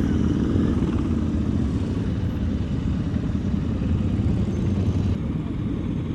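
Motorcycle engines running at low speed, a dense, fast-pulsing rumble. About five seconds in, the higher part of the sound drops away abruptly.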